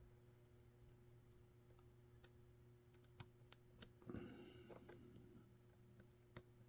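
Faint, scattered metallic clicks from a lock pick working the pin stacks of a Mul-T-Lock Junior pin-in-pin cylinder: about half a dozen sharp ticks, most of them bunched between two and four seconds in and one more near the end.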